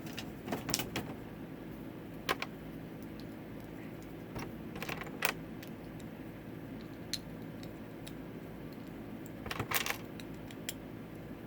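Plastic Lego pieces clicking and rattling as they are handled and snapped together, in a few short scattered clusters over a steady low hum.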